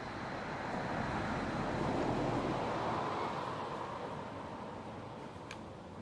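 A passing road vehicle: a steady rush of engine and tyre noise that swells, peaks about two seconds in, then fades away.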